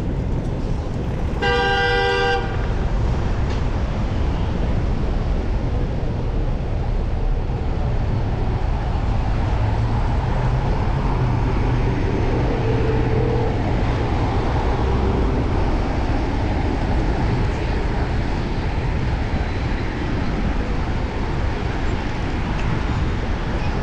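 A vehicle horn honks once, briefly, about a second and a half in, over steady wind rumble and street traffic noise.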